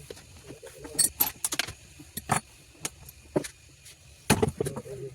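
Small metal parts clinking and knocking, handled on a workbench, in irregular sharp clicks. The loudest knock comes a little past four seconds in.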